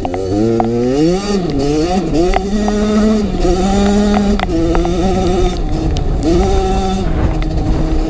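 Kawasaki KX85's two-stroke single-cylinder engine running hard under the rider, rising in pitch in the first second, then holding steady and dipping and climbing again as the throttle is rolled off and on. A few sharp knocks cut through the engine sound.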